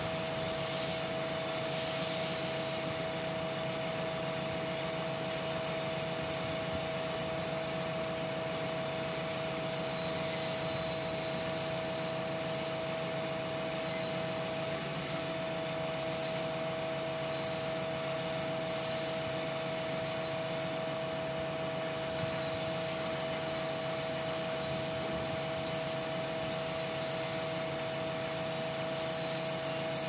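Machinery running steadily: an even drone with a constant high whine, and short bursts of hiss now and then.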